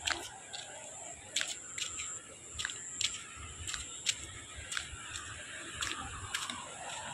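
Footsteps walking on a wet dirt path: sharp slapping steps at an uneven walking pace, about ten in all, over a steady high hiss.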